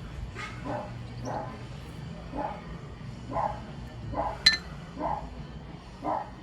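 A dog barking repeatedly, short barks roughly once a second, with a single sharp metallic clink about four and a half seconds in.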